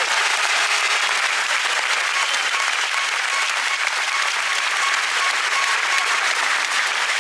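Large arena crowd applauding, a dense steady clapping that holds at full strength throughout.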